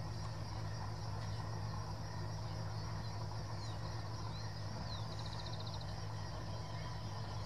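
Freight train rolling past at a distance, a steady low rumble, with birds chirping and a short rapid trill about five seconds in.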